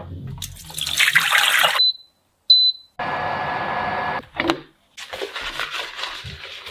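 Water splashing as a cup is rinsed in a sink, then two short high electronic beeps from a small household appliance. These are followed by about a second of the appliance's steady whir, then handling noises.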